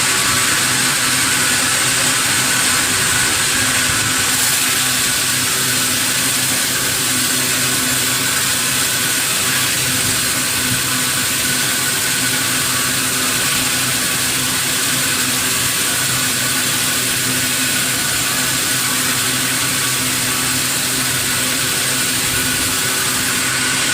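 Sawmill saw running steadily, a continuous machine hum with an even hiss and no breaks.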